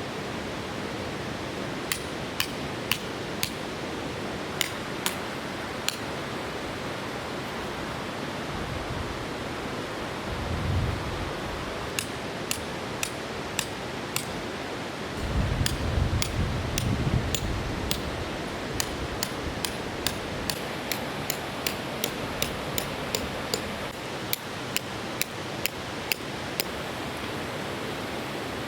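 Tent pegs being hammered into the ground: sharp, short strikes in irregular runs, over the steady rush of a river. Two stretches of low rumble come in the middle.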